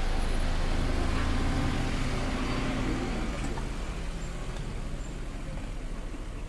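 A motor vehicle's engine running close by, a low steady rumble that fades away over the second half.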